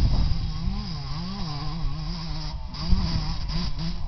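Pit bike engine approaching, its note rising and falling as the rider works the throttle, growing louder near the end as the bike closes in.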